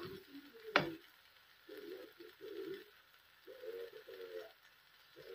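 A plastic spatula knocks sharply against the pan once, about a second in, amid the soft scrape of dry rice being stirred. A dove coos in short, repeated low phrases.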